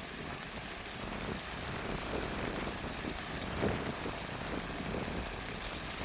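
Heavy rain falling steadily: an even hiss of rain on the ground.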